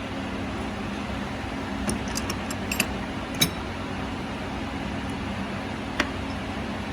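Steady mechanical hum of a running car, engine and fan together, with a few sharp clicks and taps about two to three and a half seconds in and once more near the end.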